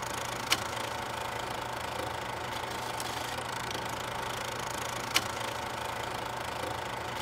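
Old film projector running as a sound effect: a steady mechanical whir with a low hum, broken by two sharp clicks, about half a second in and about five seconds in.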